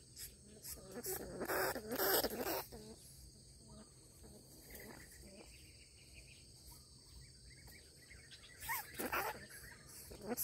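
A rat caught in a wire cage trap squeals in short rough bursts, mostly in the first few seconds and once more near the end. Light clicks and rattles come from the wire cage as it is handled.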